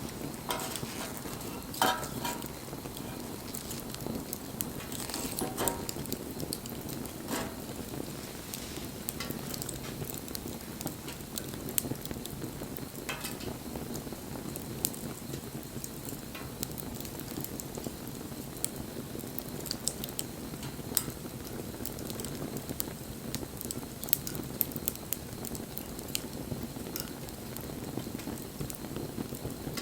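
Wood fire burning: a steady low hiss with frequent small crackles and a few louder pops.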